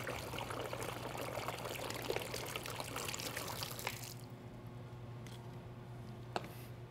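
Water poured from two plastic water bottles at once through a funnel into a jar, the pouring stopping about four seconds in. A short knock follows near the end.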